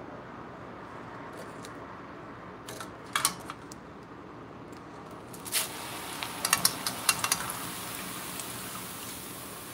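A metal mesh strainer set down over a wok of oil with a few clicks about three seconds in. Then dry flattened rice (poha) goes into the strainer, the flakes pattering and crackling on the mesh, over a steady hiss that lasts from then on.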